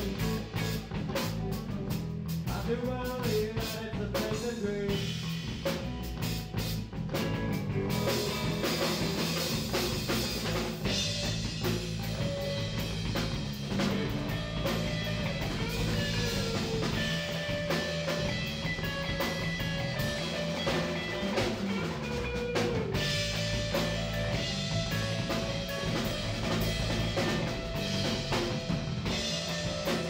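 Live rock band playing: two electric guitars over a drum kit, a dense, steady groove.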